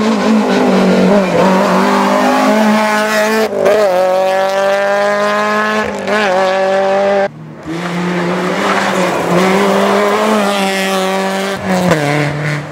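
Rally cars driven hard one after another, engines revving high and climbing in pitch as they accelerate out of bends. The sound cuts abruptly from one car to the next three times.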